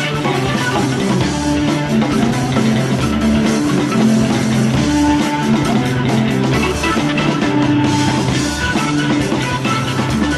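Progressive rock music with drums, bass and sustained instrumental notes at a steady, full level.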